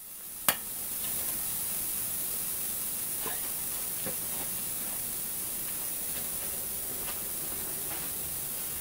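An air-hose coupler clicks onto the valve, then compressed air, regulated at 20 psi, hisses steadily into a fire-extinguisher pre-oiler tank as it pressurizes.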